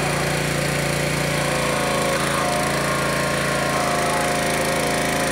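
Small gasoline engine of a Genesis hydraulic power unit, the pump that drives Jaws of Life rescue tools, running steadily, with a slight shift in its higher note a little after the middle.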